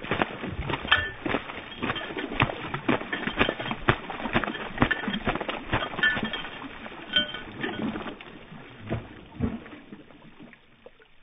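Wet dog shaking itself and splashing in shallow floodwater, played back in slow motion: a dense string of irregular slaps and splashes that thins out about nine and a half seconds in.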